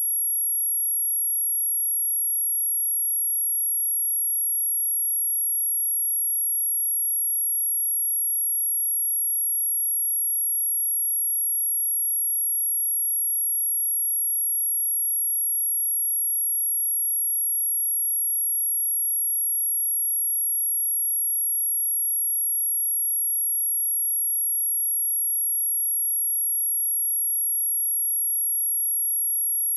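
Steady, unbroken high-pitched sine-wave test tone at 11268 Hz, a single pure tone with no change in pitch or level.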